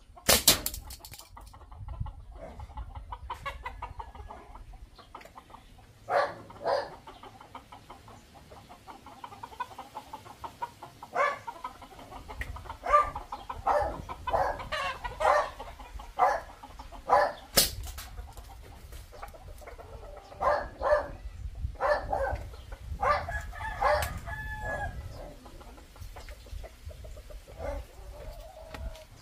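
Chickens clucking, with a rooster crowing, around a backyard. Two sharp cracks, about half a second in and a little past the middle, from a homemade marble gun shooting and knocking over targets on a plastic stool.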